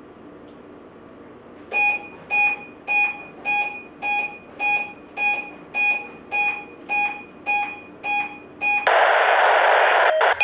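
A NOAA weather alert radio receiver beeps quickly and evenly, about a dozen short electronic beeps nearly two a second. Near the end comes about a second of loud, harsh data screech: the digital SAME header burst that opens a Required Weekly Test broadcast.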